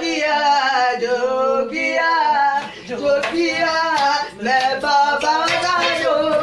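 A group of young men singing a devotional-style Hindi song in long, wavering held notes. From about three seconds in, hand claps and dholak strokes join in.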